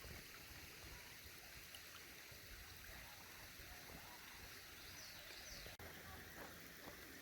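Near silence: faint outdoor evening ambience with no distinct sound, cut by a brief dropout about six seconds in.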